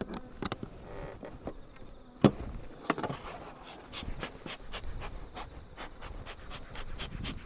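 Honeybees buzzing around the hives, with sharp clicks and knocks over it, the loudest about two seconds in, and a quick run of softer ticks in the second half.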